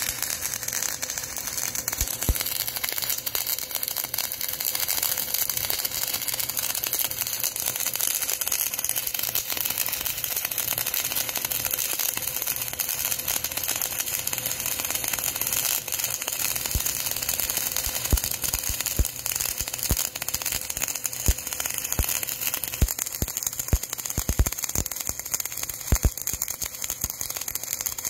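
MIG welding arc burning steadily as it fills a 10 mm gap: a continuous crackling hiss with sharp spatter pops, the pops coming more often in the second half.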